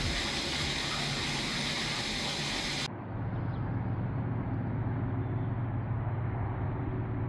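Jacuzzi tub's jets running: a steady rush of churning water, with the low hum of the pump motor standing out more strongly after about three seconds.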